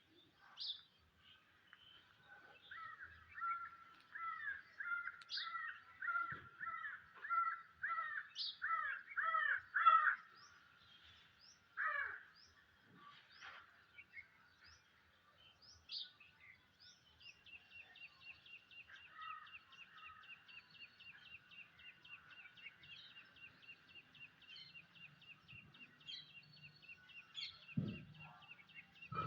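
Birds calling: a run of about a dozen harsh, repeated calls, about two a second and growing louder, then after a pause a fast, even trill that keeps going.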